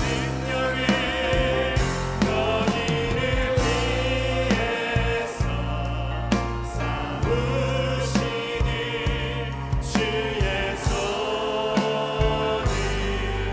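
Live worship music: a praise team and a choir sing a Korean praise song together over band accompaniment with bass and drums.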